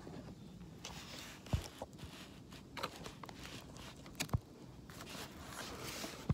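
Light scraping and three sharp clicks against an open tin can as a sardine is dug out of it.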